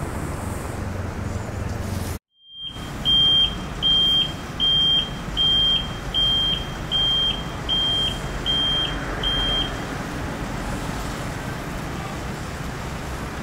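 A vehicle's reversing alarm beeps nine times, a little over one beep a second, then stops; a steady low rumble of idling engines and traffic runs underneath. The sound drops out completely for a moment about two seconds in.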